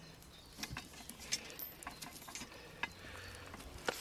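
Soft, scattered clicks, taps and rustles of a person handling a metal cooking tripod and stepping over dry leaf litter, with a sharper click just before the end.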